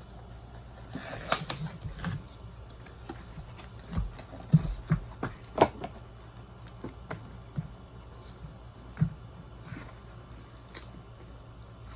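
Irregular knocks, clicks and brief rustling from handling a new bicycle inner tube and the wheel, with a few sharper taps about four to six seconds in and one more near nine seconds.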